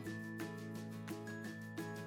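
Background music with sustained chords and a light steady beat.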